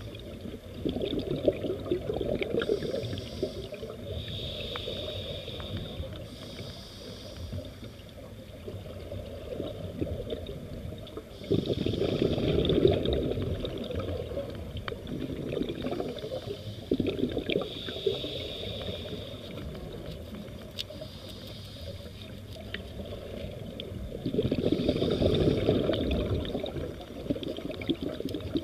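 Scuba diver breathing through a regulator underwater: a hiss with each inhale and a rush of bubbles with each exhale, repeating every few seconds.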